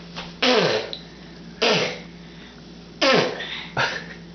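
Four sneezes in quick succession, each a sharp burst that drops quickly in pitch.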